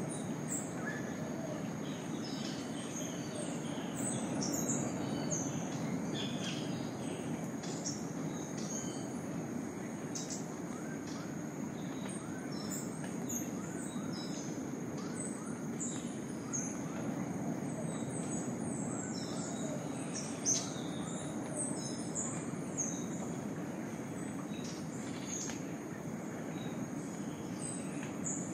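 Tropical rainforest dawn chorus: many birds chirping and calling over a continuous high-pitched insect drone and a steady low background hiss. In the middle, a lower short rising call repeats about once a second.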